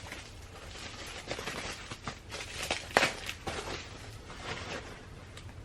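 Handling noise as merchandise is picked up and moved about: soft rustling with scattered clicks, and one sharper click about three seconds in.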